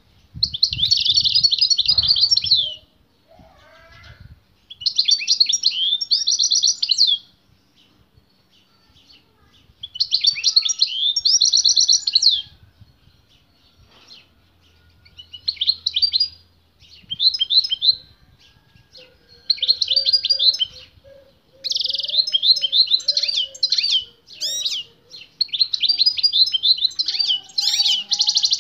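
Caged male European goldfinch singing strongly, in answer to a female singing nearby. The song comes in repeated phrases of fast, high twittering and trills, each about two to three seconds long with short pauses between.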